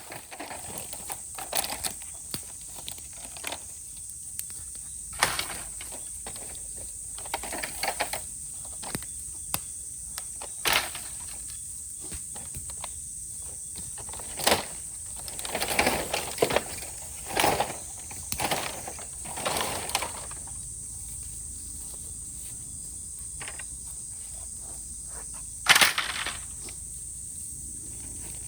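Steady high-pitched cicada chorus, with a bamboo bonfire crackling under it: scattered small clicks and a handful of sharper snaps and knocks, the loudest near the end.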